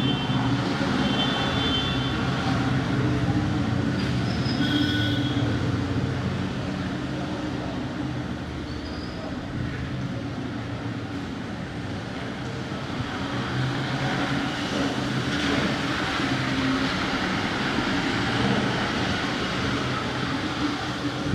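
Busy Indian street ambience after rain: a steady drone of vehicle engines and traffic, with a couple of short horn toots about four to five seconds in.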